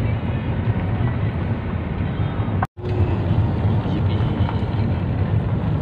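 Steady rumble of a car's engine and tyres heard inside the cabin while driving, cutting out for an instant about halfway through.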